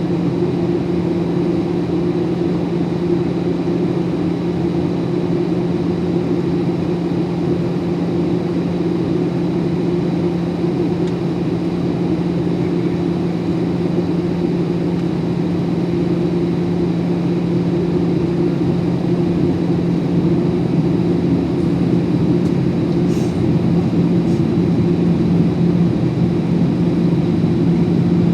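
Boeing 737 cabin noise from a passenger seat: a steady drone of engines and airflow with a low hum, getting slightly louder over the last few seconds.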